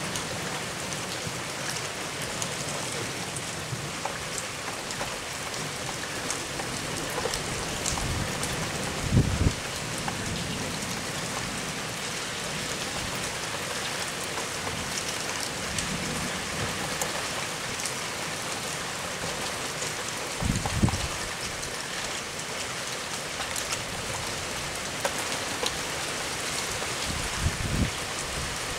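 Steady rain hissing during a thunderstorm, with three brief low thumps or rumbles spread through it.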